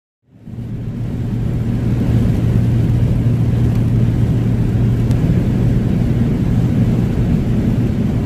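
Van driving at a steady speed: a steady low drone of engine and road noise that fades in during the first half second.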